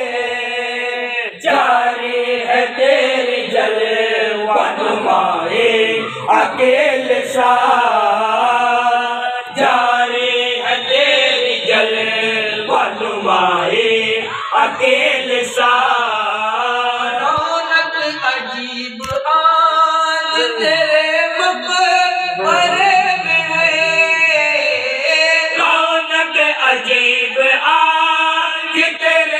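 Men chanting a melodic devotional recitation at a milad gathering, the voices carrying on continuously.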